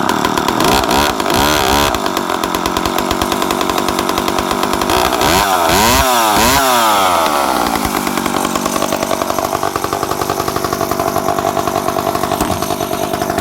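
Freshly started McCulloch Pro Mac 10-10S two-stroke chainsaw running. Its engine is revved up and down a few times, then held at a steady high speed for the second half.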